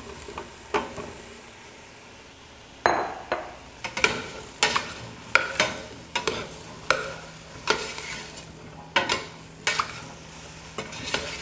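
A spoon stirring diced eggplant into onions and garlic sizzling in olive oil in a stainless steel pot. The spoon scrapes and knocks against the pot in repeated strokes, between one and two a second, starting about three seconds in.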